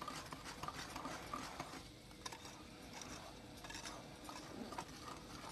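Wire whisk stirring a dry flour and cocoa mix in a ceramic bowl: faint, irregular ticking and scraping of the wires against the bowl.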